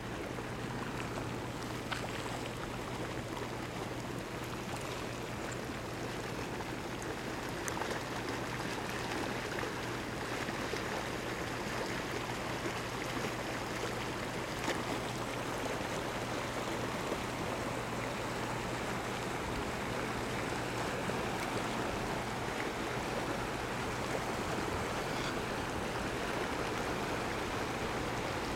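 Muddy floodwater rushing steadily over a dirt road and down a swollen desert wash.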